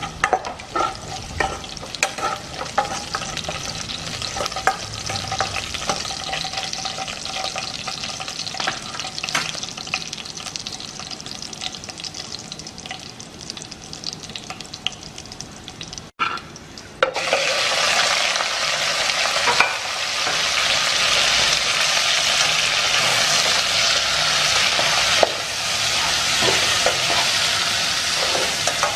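Food frying in a pan while being stirred: a sizzle with frequent clicks and scrapes from the stirring utensil. A little past halfway, after a brief break, a louder, denser sizzle starts abruptly and holds steady.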